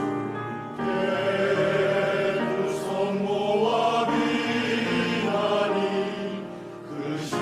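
Church choir singing a hymn with piano accompaniment; the voices come in about a second in, after a few held piano notes.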